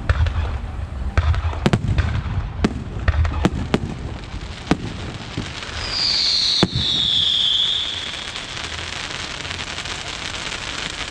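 Aerial fireworks going off in a run of sharp bangs, then a high whistle falling in pitch about six seconds in, followed by continuous crackling.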